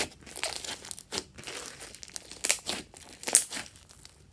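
Hands squishing, poking and pressing a large mound of slime mixed with small beads: irregular sticky crackles and pops, a few a second, the loudest near the middle and about three and a half seconds in.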